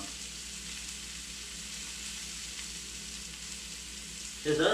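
Sausages sizzling in a frying pan, a steady hiss, with a low steady hum underneath.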